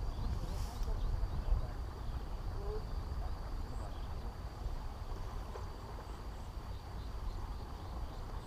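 Wind buffeting the microphone, with a faint, steady high-pitched insect trill behind it.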